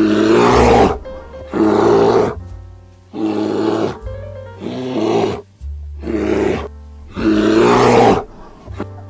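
Black bear calling: six loud, rough calls, each under a second long, about a second and a half apart, over background music.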